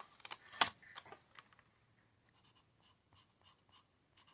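Soft 4B woodless graphite pencil scratching across paper in short strokes. The strokes are strongest in the first second and a half, then carry on faintly.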